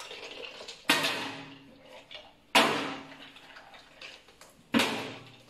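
Small pieces of ice shaken out of an ice bag clattering into a stainless steel sink, in three separate bursts, each dying away over about a second.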